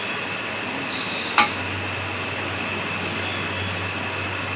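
A single sharp clink of a utensil against a metal cooking pot about a second and a half in, over a steady kitchen hiss, with a low hum setting in at the same moment.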